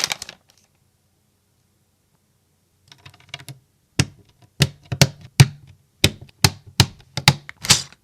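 Mechanical keyboard keys with "Silent Isle" switches being pressed: a flurry of faint quick taps about three seconds in, then about a dozen separate sharp keystrokes, roughly two a second.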